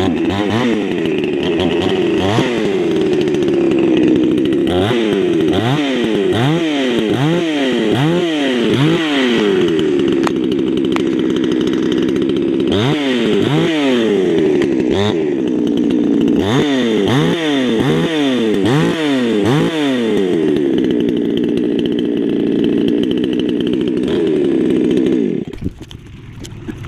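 Baumr-AG 62cc two-stroke chainsaw warming up after a cold start: idling with repeated quick throttle blips, the revs rising and falling in clusters. The engine cuts off near the end.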